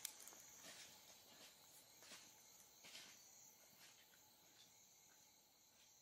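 Faint, steady high-pitched chirring of night insects, with a few soft clicks.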